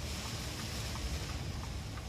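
Steady hiss of heavy typhoon rain over a low rumble, with faint, evenly spaced ticks about three times a second.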